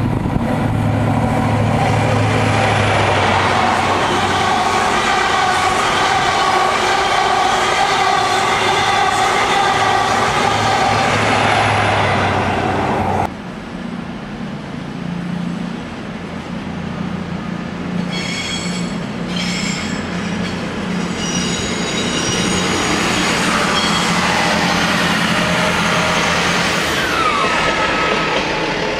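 An express train on the main line running through the station: a loud, steady mechanical drone that stops suddenly about thirteen seconds in. After that comes quieter rolling and rumbling from diesel trains, with a few short high wheel squeals about halfway through. Near the end a Northern Class 158 diesel multiple unit runs past.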